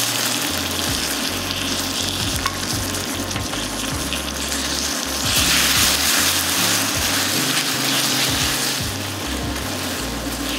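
Frozen blueberries sizzling in hot caramelized sugar in a stainless steel pan, with a spatula stirring and folding them through the caramel. The sizzle swells louder about five seconds in, then eases.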